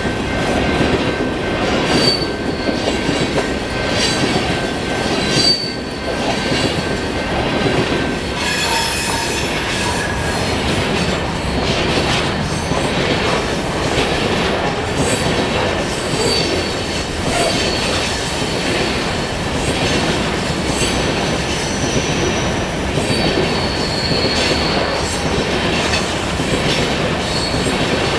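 Freight train of grain hopper cars rolling past at speed, a steady rumble of steel wheels on rail with high flange squeal coming and going and scattered clicks over the rail joints.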